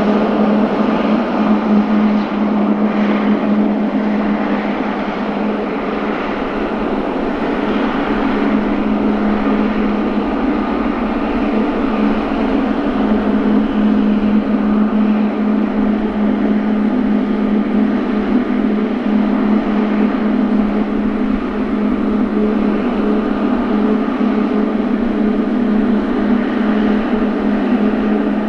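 Boeing 777-300ER's GE90-115B turbofan engines running at low taxi power: a steady jet drone with a constant low hum under it.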